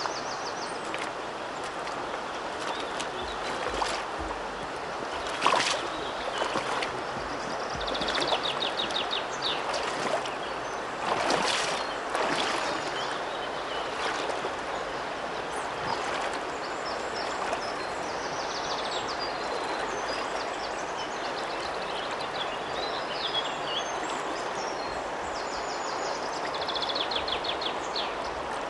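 Steady rush of a river, with splashes of waders stepping through the shallows, loudest about five and eleven seconds in. Short bird trills come and go over it.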